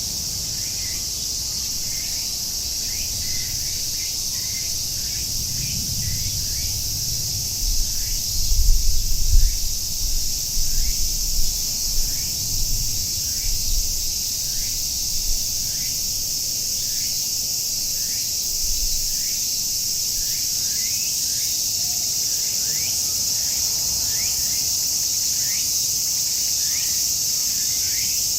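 Cicadas droning in a steady, high-pitched chorus, with a short falling call repeated about one and a half times a second underneath. About a quarter of the way in, an uneven low rumble rises for several seconds and fades out again.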